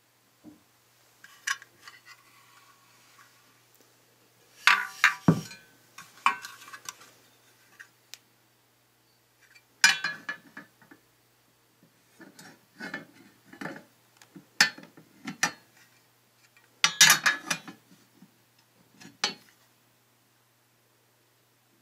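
Metal monitor-stand parts clinking and knocking as they are handled and fitted together: the metal bracket against the silver metal stand base, in scattered bursts of clinks.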